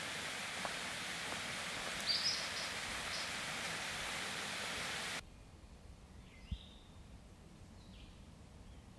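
Outdoor ambience: a steady rushing noise with a short bird call about two seconds in. The noise cuts off abruptly about five seconds in, leaving a much quieter scene where a bird calls a few times and there is one low thump.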